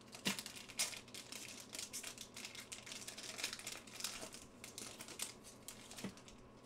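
Foil wrapper of a football trading-card pack crinkling and crackling in quick irregular bursts as hands tear it open, dying away near the end.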